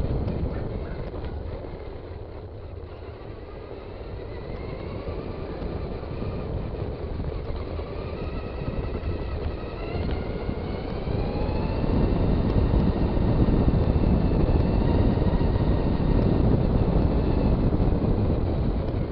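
Traxxas Stampede RC truck's electric motor and gears whining, rising and falling in pitch as it speeds up and slows, over a rumble of tyres on the ground and wind on the microphone. It gets louder from about two-thirds of the way through.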